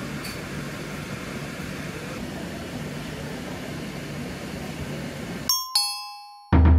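Steady hum of shop air handling and room noise, which cuts out about five and a half seconds in for an edited sound effect: two quick bright chimes, then a deep boom that fades away.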